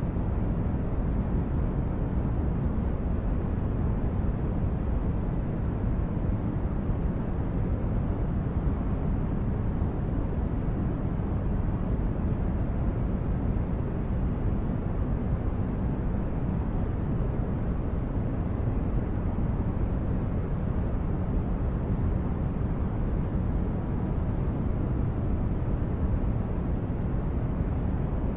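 Synthesized spaceship ambience: a steady, deep rumbling brown-noise hum of a starship interior, unchanging throughout.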